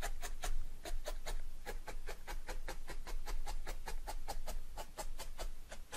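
Rapid, even stabbing of a barbed felting needle through wool roving into a dense foam mat, about five short pokes a second, as the flat areas are gone over to secure the fibres.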